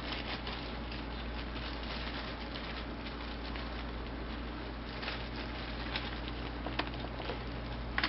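Small clicks and light metallic ticks of a disassembled key-in-knob lockset's knob and chassis being turned and worked in the hands, getting a little busier and sharper in the second half, over a steady low hum.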